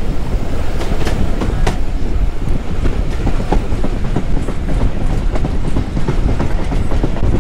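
Heritage railway carriage running along the track: a steady low rumble with irregular clicks from the wheels on the rails, heard from the carriage window.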